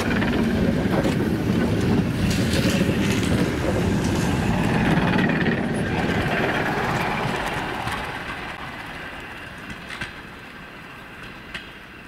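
Suburban electric multiple-unit train rolling out past the platform, its cars rumbling and wheels clattering over the rails. The noise fades away from about seven seconds in as the last car passes, leaving a few faint clicks.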